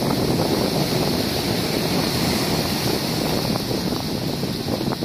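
Steady wind buffeting the microphone over the rush of the sea.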